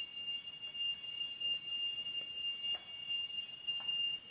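Steady high-pitched insect chorus: a continuous shrill whine with no rhythm or break.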